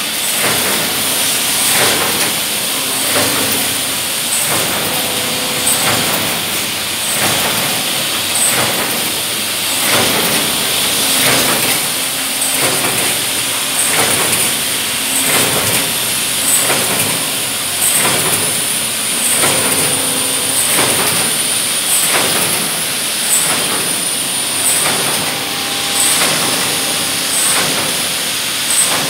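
Automatic pail-handle wire forming machine running in its production cycle: a steady stream of regular mechanical clacks, over a constant high whine and air hiss.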